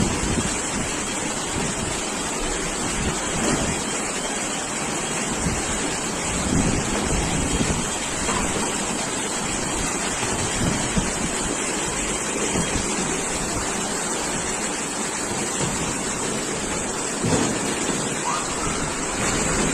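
Storm wind gusting against the microphone over a steady rushing roar, with low rumbling buffets that rise and fall every second or two.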